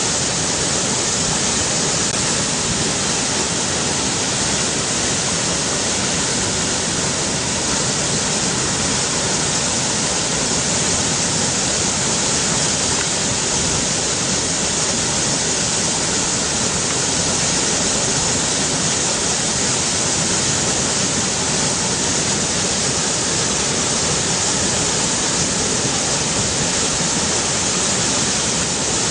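River water rushing in a steady, unbroken wash of sound.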